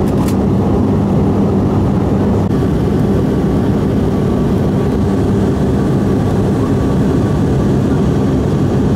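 Steady drone of an airliner's engines and rushing airflow heard inside the passenger cabin during the approach for landing.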